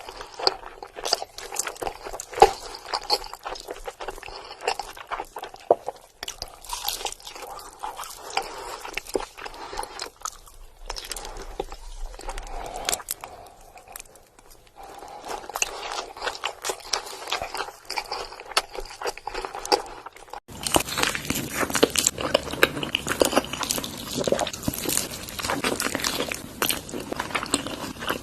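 Close-miked eating: many sharp crunching bites and chewing of crunchy food. About two-thirds of the way through, the crunching suddenly gets louder and denser.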